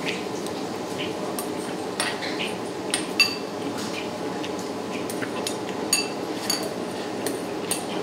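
Cutlery clinking against ceramic bowls and dishes during a meal: a string of sharp, irregular clicks, a few ringing briefly, over steady background noise.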